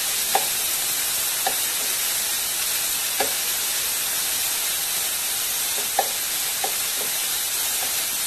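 Chopped cabbage, beans and carrot sizzling over high heat in a stainless steel pan, stirred with a spatula that makes a few light clicks against the pan.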